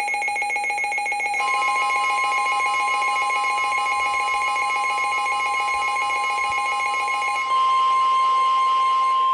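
The NOAA Weather Radio 1050 Hz warning alarm tone, a steady high tone starting about a second and a half in, signalling that a warning broadcast is about to follow. Under it a second electronic alarm tone pulses rapidly, then shifts higher and gets louder about seven and a half seconds in.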